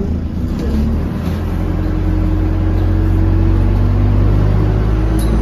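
Diesel engine of a London double-decker bus (Metroline DEL class), heard from inside the passenger deck. It runs with a steady low hum that grows louder from about a second and a half in as it revs up.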